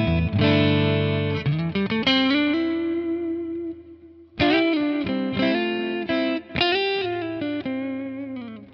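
Electric guitar played through a Neural DSP Quad Cortex running a clean-channel capture of a Marshall Super Bass 100 with cabinet. Chords and picked notes ring out and die away about three seconds in, then a second phrase of notes starts about a second later.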